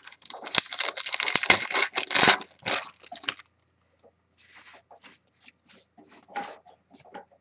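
A trading card pack wrapper being torn open and crinkled: a dense rustling burst lasting about three seconds, followed by quieter scattered rustles and ticks of the cards being handled.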